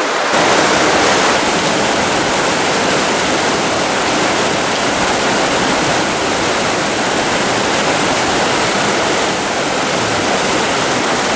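Deep Creek's whitewater rushing steadily over boulders, a loud, even wash of mountain-stream water.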